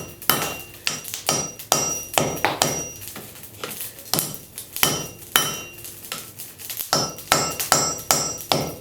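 Blacksmith's heavy hammer striking a hot railroad spike on the anvil, a steady run of blows about two to three a second, each with a metallic ring. The spike's end is being upset (driven back into itself) to build mass at the tip.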